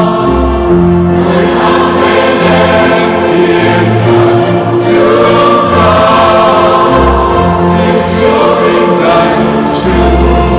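Choral music: a choir singing sustained, slow-moving chords over held bass notes.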